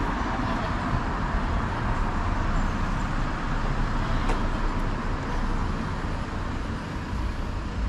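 Steady city street traffic: cars driving along the road, a continuous hum of engines and tyres.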